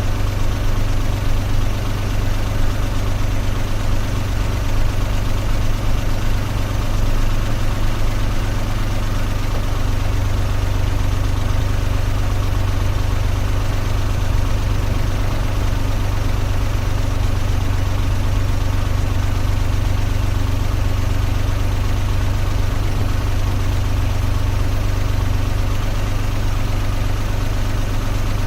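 Car engine running steadily, a constant low hum with no change in pitch.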